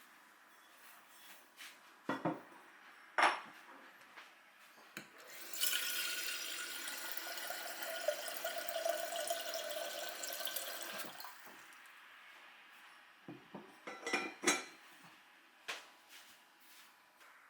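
Kitchen tap running into a sink for about five seconds, with a few clinks and knocks of dishes or glass before and after.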